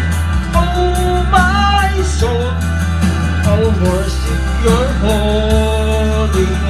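Videoke backing track of a slow worship song, with a steady strong bass and band accompaniment. Over it runs a wordless melody line of long held notes that glide from one pitch to the next.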